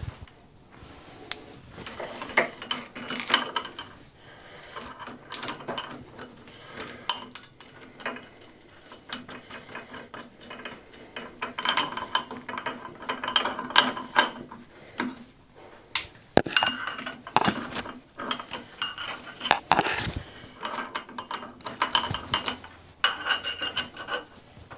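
Steel clamp studs, nuts and a clamp bar being handled and fitted on a lathe faceplate: scattered metallic clinks and knocks, in several clusters of quick rattling clicks with quieter gaps between.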